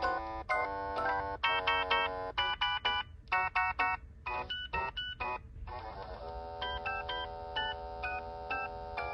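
AT&T E5960C cordless phone handset playing one of its polyphonic ringtones, a synthesized tune. It starts with short chords in a quick rhythm and turns to longer held chords about six seconds in.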